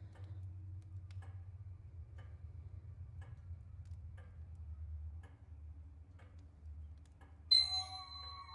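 Slow, regular clock-like ticking over a low, steady rumble. Near the end a sudden loud hit rings on in several sustained tones, a metallic horror stinger.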